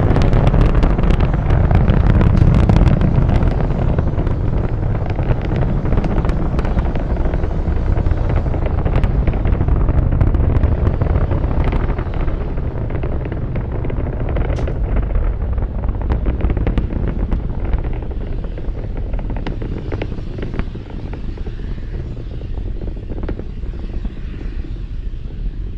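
The roar of a Falcon 9 first stage's nine Merlin 1D engines during ascent: a deep, continuous rumble shot through with sharp crackling. It fades slowly over the second half as the rocket climbs away.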